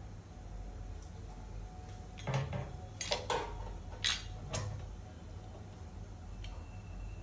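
Kitchen cookware clinking and knocking, about five sharp knocks in quick succession over roughly two and a half seconds.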